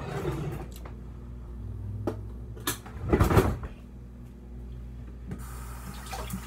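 Kitchen cabinetry being opened and shut: a few sharp knocks and clacks, the loudest a quick cluster about three seconds in, over a steady low hum.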